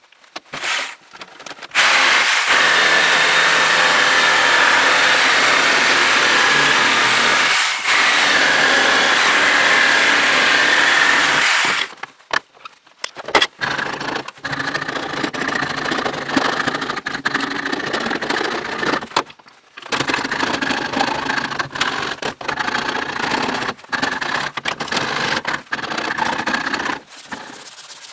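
Power tool grinding a wooden hammer handle blank held in a vise. One steady run of about ten seconds with a faint whine in it, then a string of shorter grinding stretches with abrupt breaks between them.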